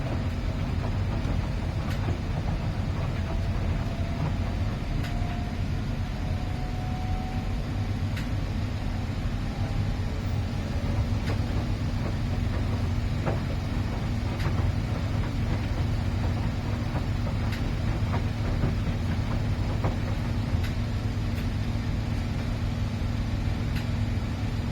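Miele PW 6080 commercial washing machine running: a steady low rumble with scattered faint clicks, joined by a steady hum about halfway through.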